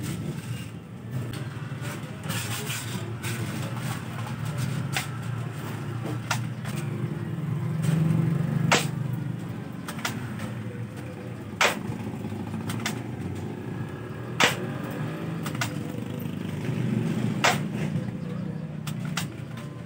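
Spring-powered airsoft rifle fired single shot after single shot, a sharp snap every few seconds as it is cocked by hand between shots, over a steady low rumble.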